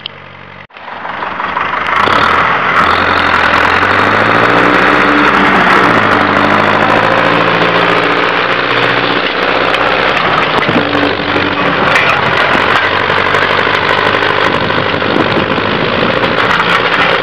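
Farm tractor's diesel engine running, heard from inside the cab: it comes in about a second in, rises in pitch over a few seconds, falls back, and then runs steadily.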